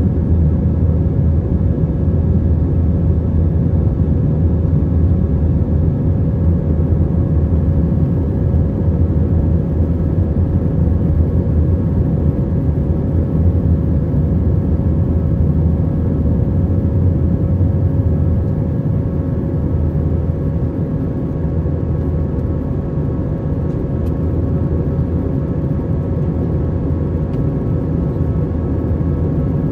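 Airbus A321 cabin noise: a steady deep rumble of engines and airflow with a few steady hum tones over it, easing slightly about twenty seconds in.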